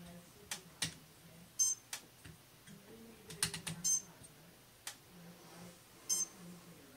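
Light clicks and taps from hands working at a Phoenix electric spinning wheel. A sharper ringing click recurs about every two seconds, over a faint low hum that comes and goes.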